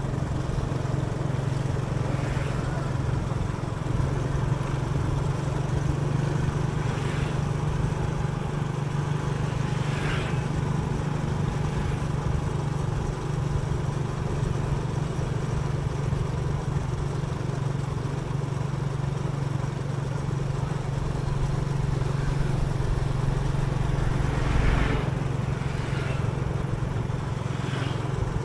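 A motor vehicle travelling along a road: a steady engine hum under road and wind noise, with a few brief swishes.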